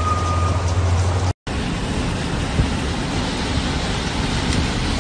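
Steady low vehicle engine hum over the hiss of rain and water for about a second and a half, breaking off suddenly. Then an even hiss of rain and traffic on a flooded road.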